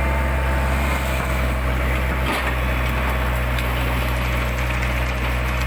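Excavator's diesel engine running steadily while the machine works through brush, with a sharp crack of snapping wood about two seconds in.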